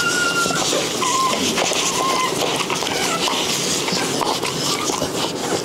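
Newborn Rottweiler puppy squeaking a few times, short and high, in the first half, over the steady scratchy rustle of a towel and tissue rubbed briskly over it to revive it after it was born short of breath.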